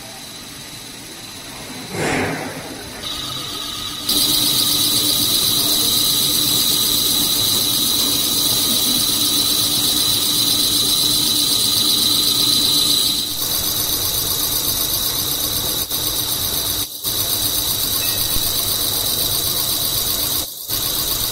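Snack pellet extruder line running: a loud, steady high-pitched machine whine over a lower hum and constant mechanical noise. The sound changes abruptly several times, a little after the start, about a third of the way in, and near the end.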